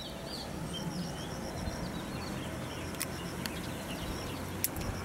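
Rural outdoor ambience: birds chirping briefly near the start, a steady run of quick high-pitched calls from a bird or insect, a few sharp clicks, and a low steady hum underneath.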